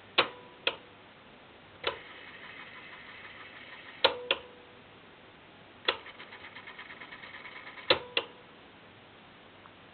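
Mechanical piano-key buttons of an early TDK portable cassette player clunking as they are pressed and released, the sharpest clicks ringing briefly. Twice in between, the tape transport whirs with a quick fluttering rhythm for about two seconds while the tape winds at speed, and each run is cut off by another key clunk.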